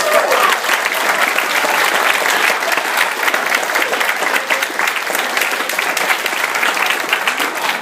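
Audience applauding steadily, a dense crowd of hands clapping.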